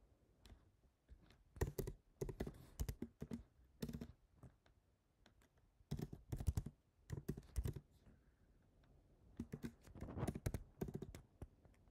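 Typing on a computer keyboard: short bursts of key clicks with pauses between them.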